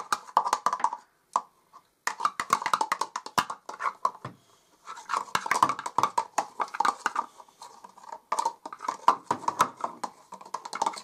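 Rapid scraping strokes of a toy utensil worked fast around a small plastic bowl, with two short pauses, about a second in and about four seconds in.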